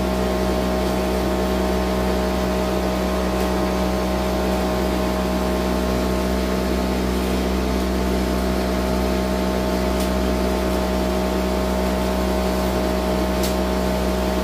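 Homemade cotton candy machine running steadily: its motor spins the brass-and-Teflon heating head with a constant hum, and the gas burner beneath it hisses.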